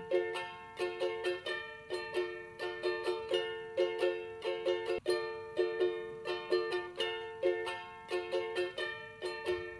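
Background music: a light plucked-string tune, ukulele-like, with evenly repeating picked notes.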